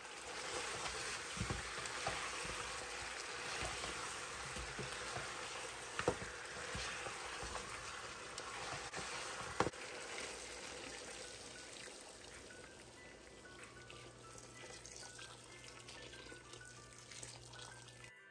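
Water poured into a hot pot of browned chicken pieces, the hot fat sizzling and spitting as the water hits it. The hiss is loudest in the first half and dies down over the second half as the liquid fills the pot. There are two sharp knocks, about six and ten seconds in.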